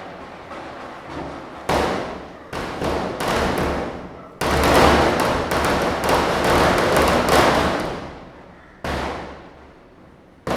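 Diwali firecrackers bursting: a few separate sharp bangs, then a dense rapid run of cracks for about four seconds, and one more bang near the end.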